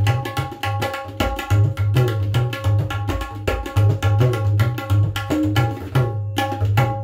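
A tabla set is played in a fast run of strokes. The sheesham-wood dayan with its handmade Banaras head rings at a steady pitch over the deep bass of the copper bayan. There is a short break near the end before the strokes resume.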